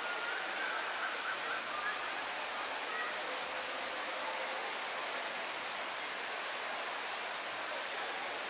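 Steady rush of falling and running water, with a few faint short high tones in the first two seconds.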